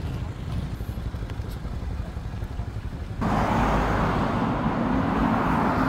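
Road traffic noise: a low rumble that changes abruptly a little over three seconds in to a louder, brighter steady rush of passing traffic.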